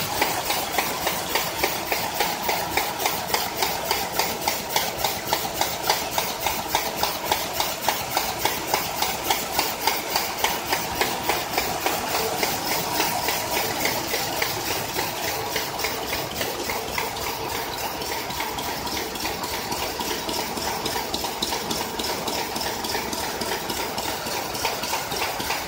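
ZF280B wallet-envelope and paper bag making machine running, its feeding and folding mechanism clattering in a steady rapid rhythm of about three beats a second over a steady whine. The beat grows less distinct in the second half.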